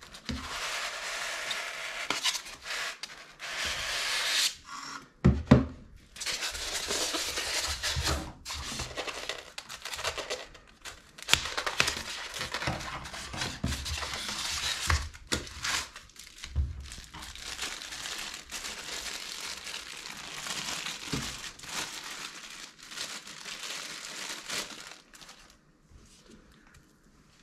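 Cardboard and packing being handled by hand: a box sliding and flaps opening, a styrofoam insert pulled apart, and plastic wrapping crinkling. A few sharp knocks of the packaging against the table come through the rustling, which stops near the end.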